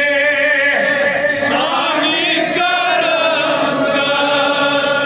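Men's voices chanting a devotional refrain together through a microphone, in long held notes with a wavering run a little under two seconds in.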